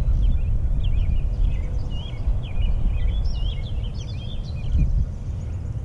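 Songbirds chirping and singing over and over, over a steady low rumble.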